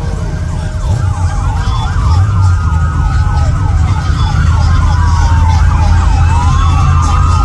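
Several police car sirens sounding at once, fast yelp sweeps overlapping slower rising-and-falling wails, over a steady low rumble. They grow louder a second or two in.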